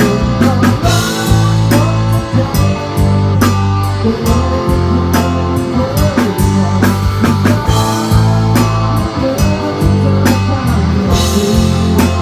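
Rock band playing an instrumental passage without vocals: guitar over a drum kit and deep, sustained bass notes.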